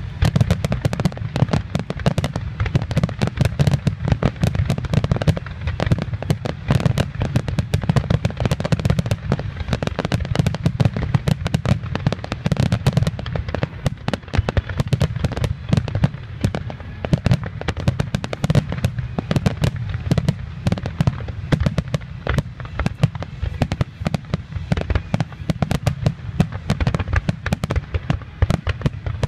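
Aerial fireworks display in a dense barrage: shells bursting in rapid, overlapping bangs and crackles, many a second, with no let-up.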